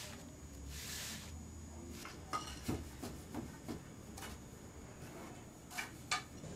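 Wooden parts of a backstrap loom clicking and knocking as the weaver passes the weft and beats it into the warp. There are two soft swishes in the first second or so, a run of light knocks in the middle, and two sharper knocks close together near the end.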